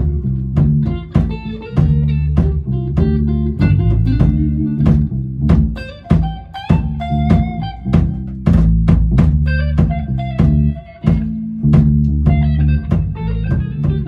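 A rock band playing live in a small rehearsal room: distorted electric guitar over bass guitar and a drum kit keeping a steady beat. The guitar is a cheap tone-test rig, a Strat-style guitar through a Korg AX1G multi-effects unit and a FoxGear Tweed 55 amp into a 4x12 cabinet.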